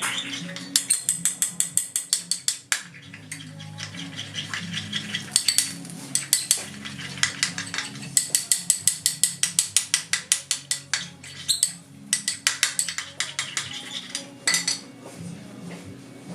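A spoon clinking rapidly against a small dish, about seven strokes a second, in four bursts with short pauses: hand-feeding formula for a cockatiel chick being stirred. A low steady hum runs underneath.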